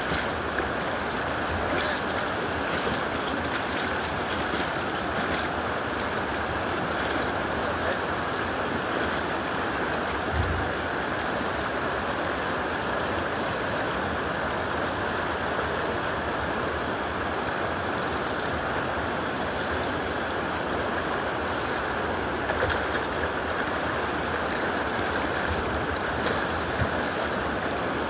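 Shallow river rushing over rocks in a riffle: a steady, even rush of flowing water.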